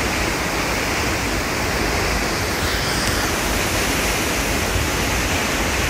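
Waterfall plunging into a rocky pool: a steady, even rush of falling water.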